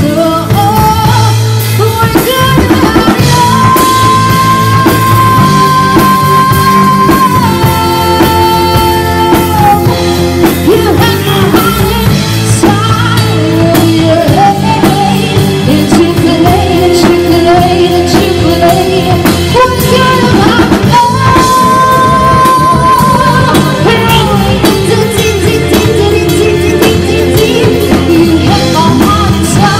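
Live rock-pop band playing: a woman sings lead into a microphone over a drum kit, electric bass and electric guitar, with long held notes in the melody twice.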